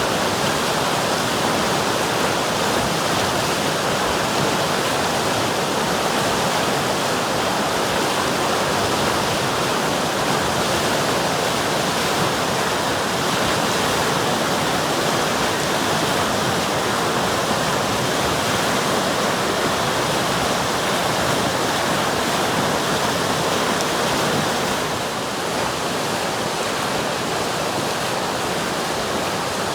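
River water flowing steadily, an even rush of noise that gets a little quieter for the last few seconds.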